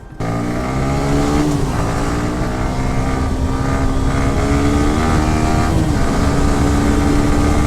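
Motorcycle engine running while riding, with wind and road noise. It starts abruptly just after the beginning, and the engine note shifts a few times as the revs change.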